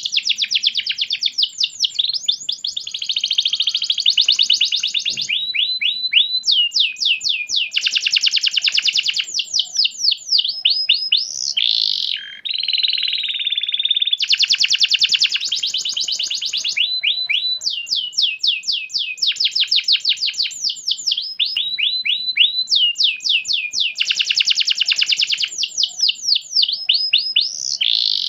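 Domestic canary singing nonstop: high, fast rolling trills alternating with runs of quick repeated downward-sweeping notes, switching phrase every second or two.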